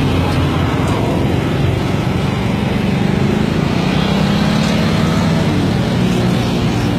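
Small petrol engines of a motorcycle and a children's mini quad bike running close by in road traffic, steady, with the engine note wavering slightly in pitch partway through.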